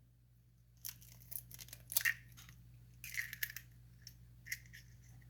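An egg being cracked and dropped into a hot oiled frying pan: a few irregular sharp clicks and short crackles of shell and spitting oil, over a faint steady low hum.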